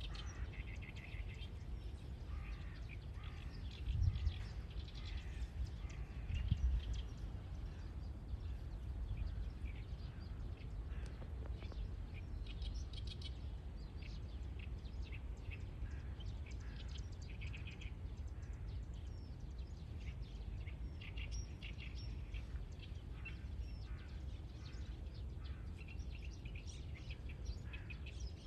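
Songbirds chirping and singing on and off over a steady low rumble, with two dull bumps about four and six and a half seconds in.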